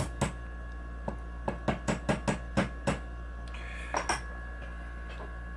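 Small hammer tapping a punch to drive the front pin into a Springfield XD pistol frame during reassembly: one tap, then a quick run of about eight light taps, then two more about four seconds in.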